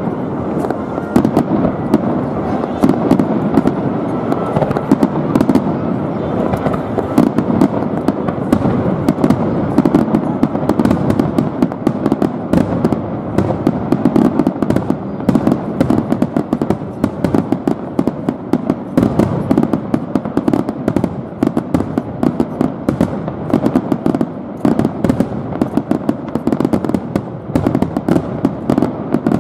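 Dense fireworks barrage: shells bursting one after another over a continuous rumble, with many sharp pops and crackles a second from the glittering stars.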